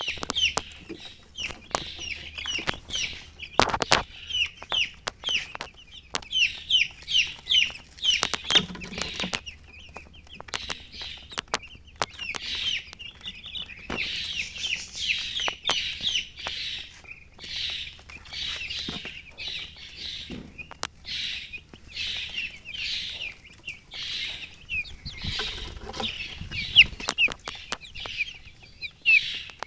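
Baby chicks peeping continuously, many short high chirps overlapping one another, with scattered sharp clicks among them.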